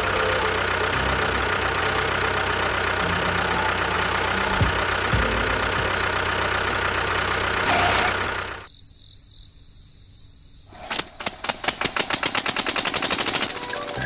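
A small engine running with a steady, dense rattle. It drops away for about two seconds, then comes back as a fast, even chugging of about nine beats a second.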